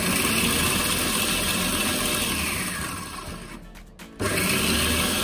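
Electric food chopper whirring as it minces raw beef mince with herbs and spices. The motor winds down and stops about three and a half seconds in, then starts again abruptly just after four seconds.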